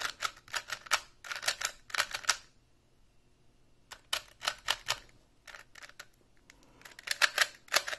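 Alpha V 3x3 speedcube being turned fast, its plastic layers clacking in quick runs of turns with a pause of about a second and a half in the middle. Fresh out of the box and not yet broken in, it is really loud and very hollow sounding.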